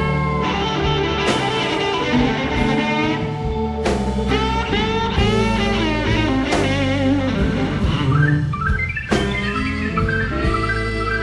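AI-generated instrumental blues: a guitar lead playing bent, wavering notes over a drum kit beat.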